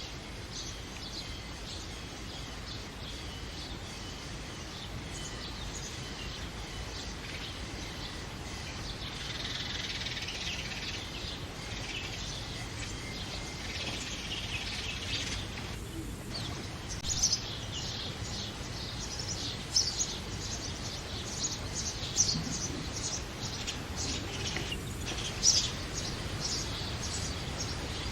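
House sparrows chirping over a steady background hiss. The chirps form a dense chatter through the middle, then come as sharper, louder single chirps in the last third.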